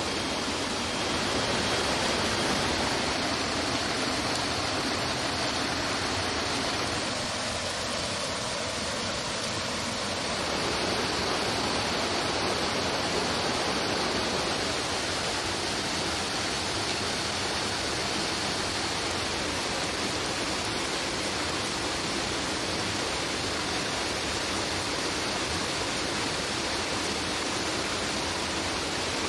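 Steady rushing of a stream running over rocks.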